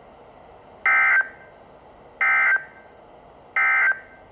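Three short bursts of EAS/SAME digital data tones on NOAA Weather Radio, each a buzzing two-tone warble lasting about a third of a second, about a second and a half apart. This is the end-of-message (EOM) code that closes the Required Weekly Test broadcast.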